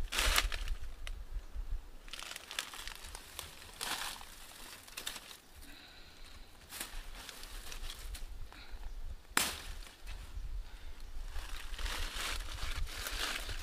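Dry leaf litter and brush crunching and rustling in irregular bursts under footsteps and handling, with one sharp crack about nine seconds in.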